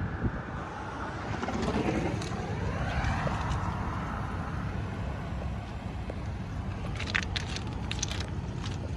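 A road vehicle's engine accelerating, its pitch rising over about two seconds, over a steady low rumble of traffic and wind on the microphone. A few sharp clicks come near the end.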